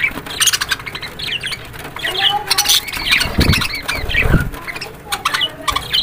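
A cageful of budgerigars chattering: many short, quick chirps and clicks overlapping, with two brief low rustles a little past the middle.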